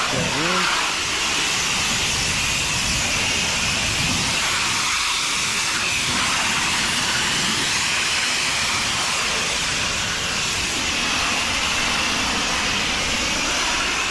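Pressure washer spraying a fence: a steady, loud hiss of the water jet that runs without a break.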